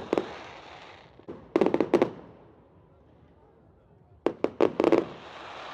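Bonfire crackling: two clusters of sharp wood pops, about a second and a half in and again past four seconds, each trailing off into a fading hiss.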